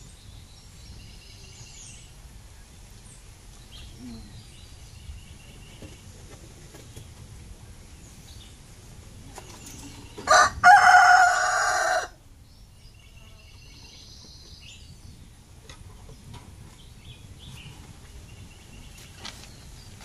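A rooster crows once about ten seconds in. The loud call lasts about two seconds, a short opening note followed by a long held one. Faint chirps of small birds can be heard around it.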